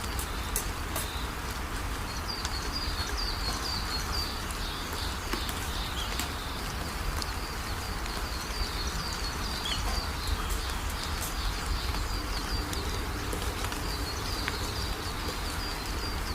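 Birds chirping in runs of short, high notes over a steady background hiss and low hum.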